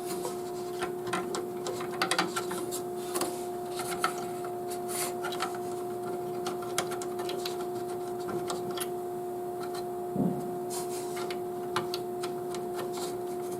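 Scattered light clicks and taps of plastic parts being handled as a CPU cooler's push pins are worked into the motherboard holes, over a steady faint hum.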